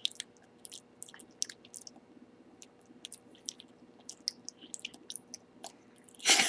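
Faint, irregular wet mouth clicks and smacks from a child licking a hard-candy lollipop, with a louder noise right at the end.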